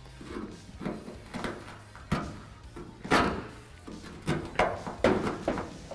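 Flat blade screwdriver scraping flaking, bubbled paint off a rust spot on a pickup's steel body panel. It comes as a string of short, uneven scrapes, the strongest about three seconds in.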